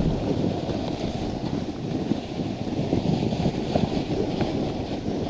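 Dog sled running over packed snow: the runners scrape and rattle steadily, with wind on the microphone.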